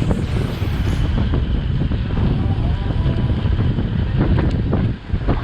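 Wind buffeting the camera's microphone while riding, a loud, dense, low rushing noise that dips briefly near the end.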